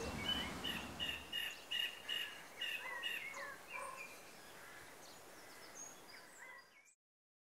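Faint outdoor ambience with small birds chirping: a run of short repeated calls and quick rising and falling notes over a low background hiss. The calls thin out after a few seconds and the sound cuts off near the end.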